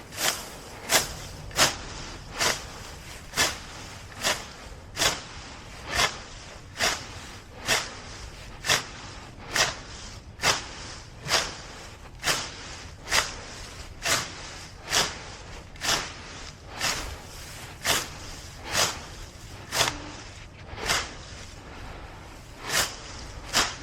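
Grass being cleared by hand without power tools: a steady run of short, sharp strokes, a little more than one a second.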